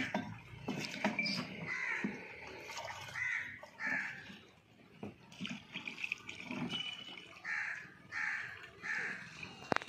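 A crow cawing about five times in two runs, two harsh caws and then three. Under the caws are light scrapes and knocks of hand tools working wet cement, and one sharp click near the end.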